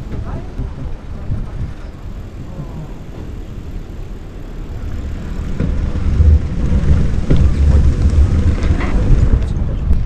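Strong wind buffeting the microphone of a camera riding on a moving bicycle: a low, gusty rumble that grows louder about halfway through.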